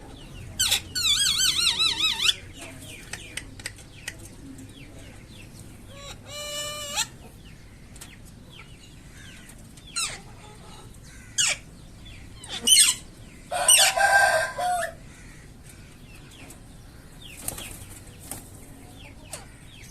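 Alexandrine parakeet calling: a wavering run of calls near the start, scattered short squawks in the middle, and a louder, longer call about two-thirds through.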